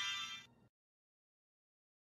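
The tail of a high, ringing music cue that stops about half a second in, followed by dead digital silence.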